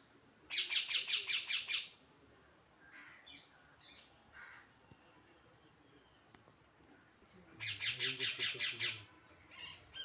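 Parrot calling in two rapid runs of about eight or nine quick notes each, one near the start and one near the end, with a few short single calls in between.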